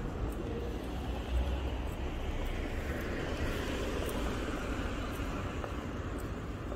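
Street traffic: cars driving past on a city road, a steady low rumble with tyre noise that swells through the middle and then eases off.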